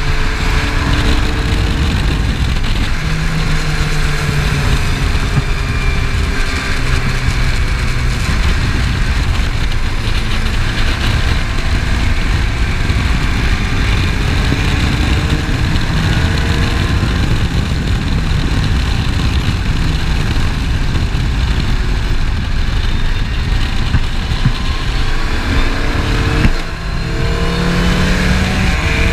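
Open-wheel Skip Barber formula race car's engine running hard at speed, heard from the open cockpit with a heavy rush of wind noise. The engine note dips briefly near the end, then climbs again.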